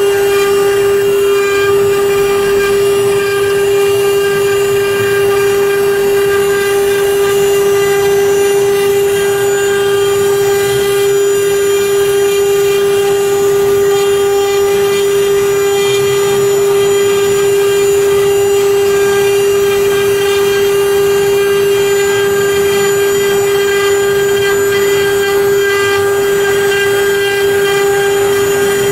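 Spindles of a multi-head CNC router engraving an MDF board: a steady whine with the hiss of the bits cutting into the board, unchanging throughout.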